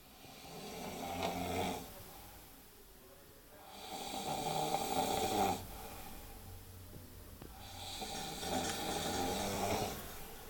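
Snoring: three long snores, each lasting about two seconds and coming roughly every four seconds.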